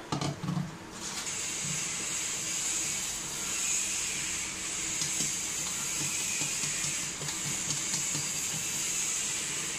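Wire whisk stirring thick besan batter in a steel bowl, soft repeated strokes, under a steady hiss that starts about a second in.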